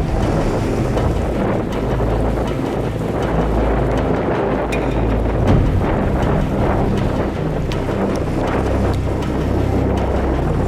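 Strong wind buffeting the microphone over the open sea, a steady heavy rumble with sea noise beneath it.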